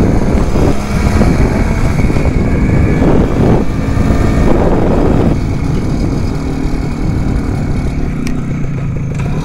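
Vintage two-stroke motorcycle engine running while riding, with wind noise on the microphone. The engine note shifts a few seconds in.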